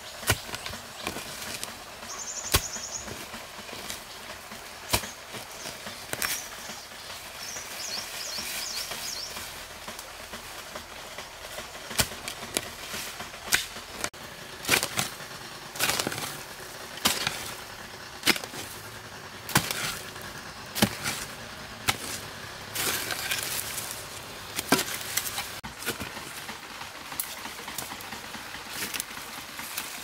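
A hand hoe chopping into dry soil, roots and dead grass, with repeated sharp strikes at uneven intervals about a second or so apart that come thicker and louder in the second half. A short bird chirp about two seconds in.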